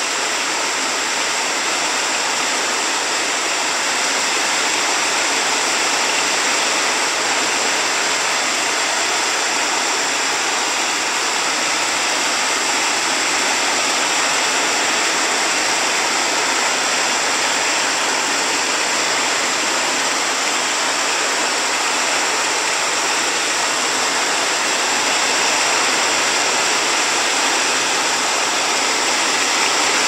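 Steady rain falling on grass and leafy plants: an even, dense hiss with no single drops standing out.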